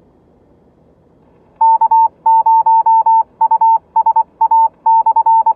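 A 2-meter amateur radio repeater keying a single steady beep on and off in short and long pieces, a Morse code identification, heard through the mobile radio's speaker from about one and a half seconds in. It is the repeater responding, the sign that the call reached it.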